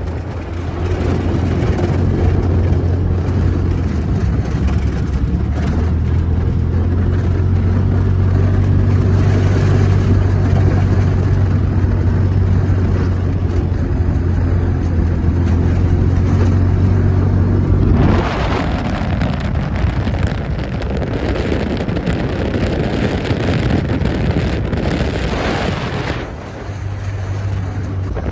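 Side-by-side off-road vehicle's engine running steadily while driving over sandy tracks, with wind rushing past the open cab. About eighteen seconds in, the steady engine hum gives way to a louder rushing noise, and the hum returns near the end.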